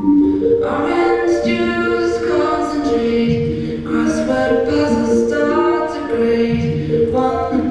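Voices singing a song in harmony, largely a cappella, with held notes that move every half second or so.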